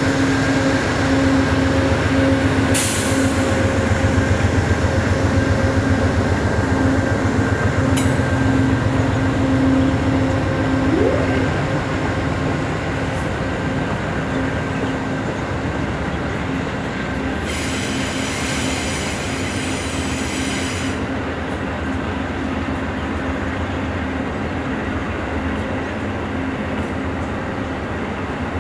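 An Amtrak passenger train's cars rolling past on curved track: a steady rumble of wheels on rail with a steady whine, louder for the first dozen seconds. There are a couple of sharp clicks early on, and a hiss lasting about three seconds a little past the middle.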